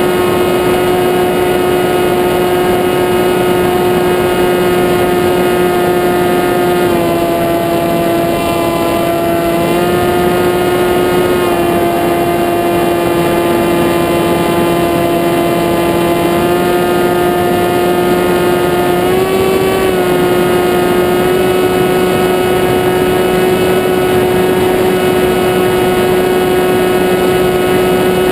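Electric motor and propeller of a small RC aircraft running with a steady whine. The pitch dips and rises slightly several times as the throttle changes.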